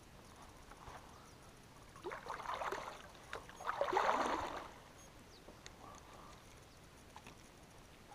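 Water splashing beside a kayak in two short bursts, the second louder, about two and four seconds in.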